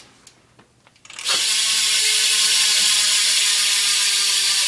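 Rear hub of a custom BMX bike, a Premium Stinger, freewheeling as the wheel spins: the pawls click so fast they run together into a steady, loud ratcheting buzz that starts about a second in.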